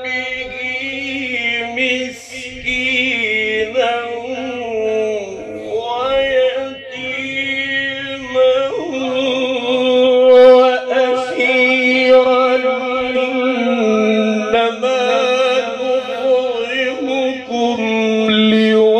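A man reciting the Quran in the melodic tajweed style over a microphone and loudspeaker: long held notes with ornamented, wavering turns in pitch, broken by short pauses for breath.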